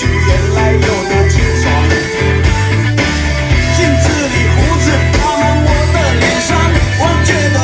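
A rock-style song with singing, guitar and a heavy bass line, played over a Dynaudio 10-speaker car audio system driven by an RNS510 head unit.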